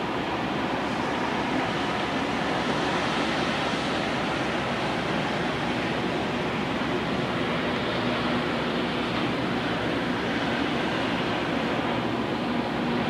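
Steady rush of wind and churning sea water from ships moving at speed, with a faint low engine hum underneath that grows a little clearer past the middle.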